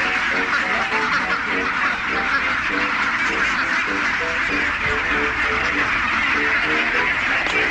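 A flock of ducks quacking, many short calls overlapping throughout, over a steady hiss.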